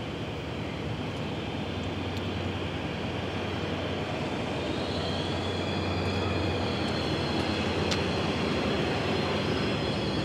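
New Jersey Transit commuter train approaching along the tracks, its rumble growing steadily louder, with a thin high squeal joining from about halfway through.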